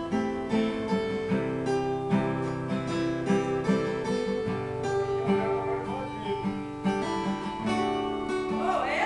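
Acoustic guitar strummed and picked in a steady rhythm, playing an instrumental interlude between the sung verses of a sertanejo song.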